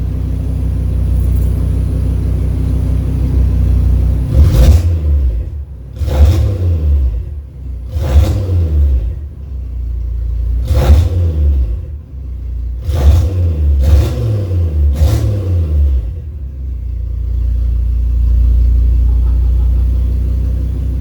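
Audi RS3 8V's 2.5-litre turbocharged five-cylinder engine idling, then revved hard about seven times in quick succession before settling back to idle. Its OEM mid-pipes and catalytic converters are removed, so the exhaust dumps straight out of the downpipe.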